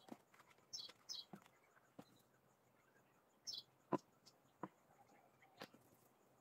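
Near silence with a few faint scattered knocks and three short, high chirps that fall in pitch, two close together near the start and one about three and a half seconds in.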